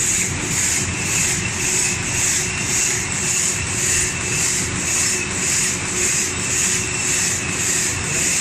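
Automatic packing machine for plastic cutlery sets running, with a high swishing sound repeating about twice a second over a steady mechanical hum.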